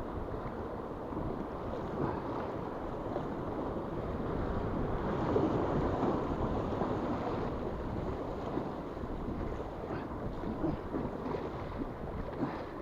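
Steady rush of river water around an inflatable canoe, mixed with wind buffeting the microphone.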